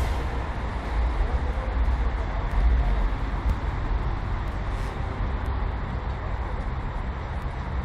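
Steady low rumble with a hiss over it and a few faint ticks.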